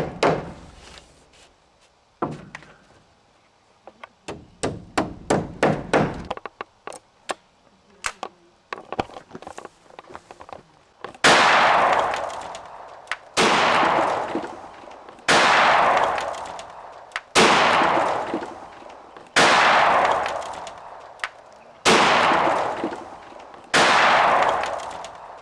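Hammer driving nails into a wooden barn wall in quick clusters of strikes, then, from about eleven seconds in, seven 12-gauge shotgun shots about two seconds apart, each fading out slowly.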